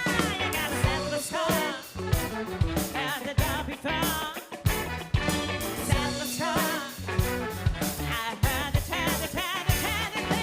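Live funk and soul band playing, with a drum kit keeping a steady beat under a wavering lead melody.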